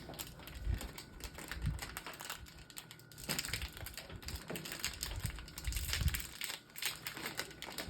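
Moyu RS3M 2020 3x3 speedcube being turned by hand: a run of quick plastic clicks and clacks from the layers snapping past one another.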